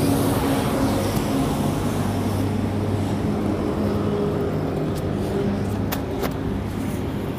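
Steady hum of a motor vehicle's engine running, with road traffic noise and a few faint clicks near the end.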